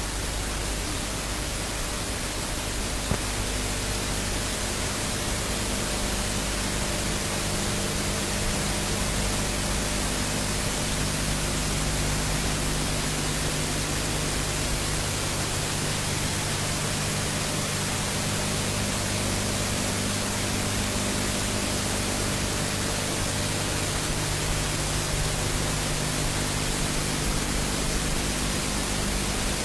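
Steady recording hiss with a faint low hum of steady tones underneath.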